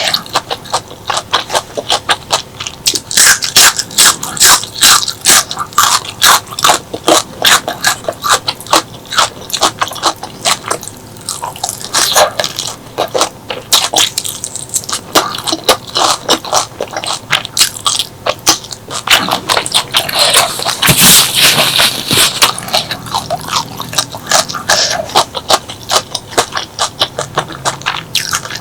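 Close-miked eating sounds: wet chewing, lip smacks and crunching in quick irregular succession, with a denser crunchy stretch about two-thirds of the way through.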